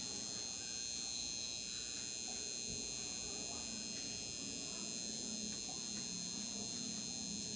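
Power Grid AVR-500W automatic voltage regulator switched on and humming steadily with an electrical buzz, a noise the repairer puts down to its relay.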